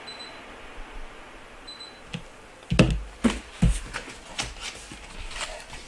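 Unboxing handling noise: a run of sharp clicks and knocks starting about two seconds in, loudest near three seconds, over a faint steady hiss.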